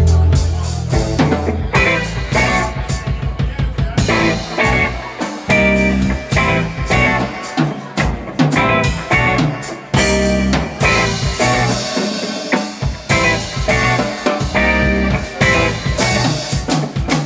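A live instrumental trio of electric guitar, electric bass and a Sonor drum kit playing together, with busy drumming under the guitar line.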